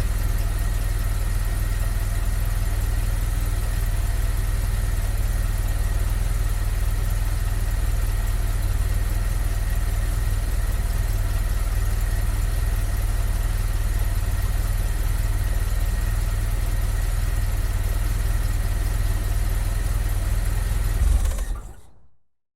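Car engine, heard from outside the car, idling steadily. It is switched off near the end, giving a brief swell before it quickly dies away.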